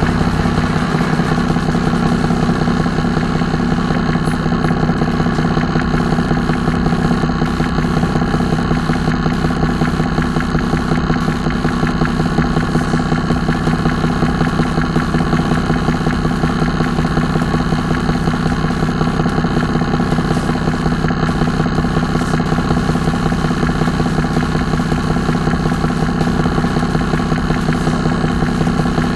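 The Cummins M11 inline-six diesel of a 1995 Freightliner FLD112 semi truck, idling steadily.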